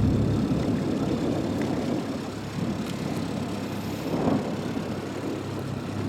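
Small boat's outboard motor running steadily under way, a low engine hum with a rough rumble.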